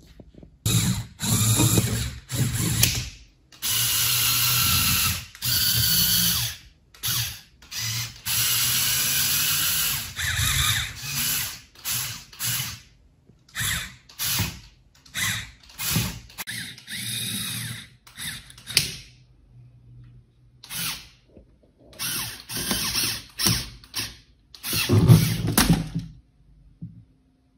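Small Lego Technic electric motors running and driving plastic gear trains, in many separate runs that start and stop suddenly.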